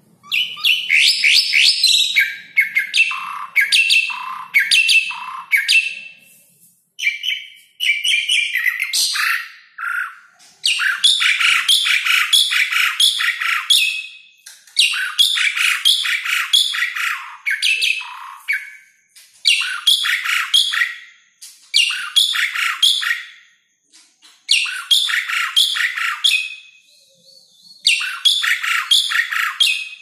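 Asian pied starling (Gracupica contra) singing: repeated phrases of rapid chattering, whistling notes, each lasting one to three seconds, with short pauses between them.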